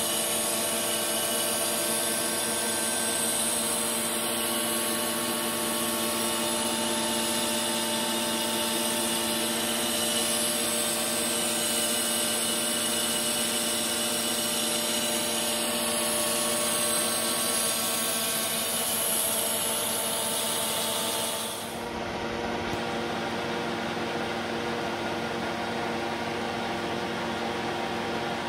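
Metal lathe running steadily while turning a GG25 cast-iron workpiece: a steady machine hum with a high hiss over it. About three-quarters of the way in, the hiss drops away and the hum goes on.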